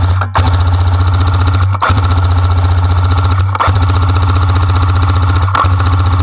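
Airsoft electric M60 machine gun firing long full-auto bursts: a fast, steady mechanical rattle of motor and gearbox cycling. It is broken by brief pauses about every two seconds.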